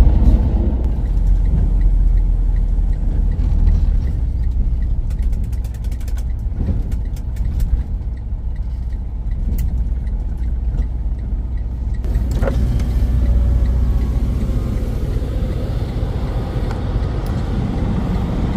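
Freightliner Cascadia semi-truck under way: a steady low engine and road rumble.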